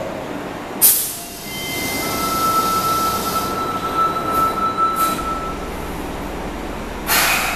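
Fukuoka City Subway 1000 series train standing at the platform before departure: a sharp hiss of air about a second in and again near the end. Between them a steady high tone holds for a few seconds, and a low rumble builds in the second half.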